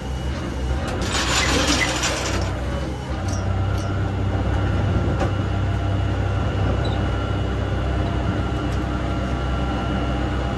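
A large vehicle's engine running steadily with a low rumble, and a short hiss about a second in.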